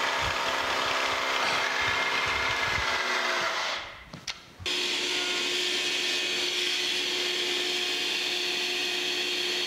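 Milling machine end mill cutting a notch into a cast-iron pillow block bearing housing: a steady machine hum with many tones over a rough low rumble from the cut. It drops away briefly about four seconds in, then the machine runs on with a steady hum and a single tone.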